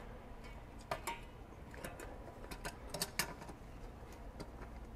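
A handful of faint, irregular clicks and taps from a plastic JM3 oil filter wrench being lifted off and re-engaged on a spin-on oil filter, mostly in the middle of the stretch.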